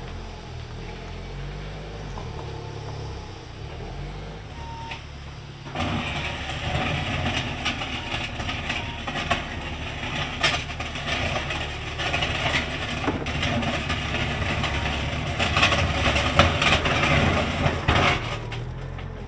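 Forklift engine running, quieter at first, then working harder and louder from about six seconds in as it moves the AEC Militant recovery truck, with knocks and clanks along the way. The truck's own engine is not running because its diesel tank is off.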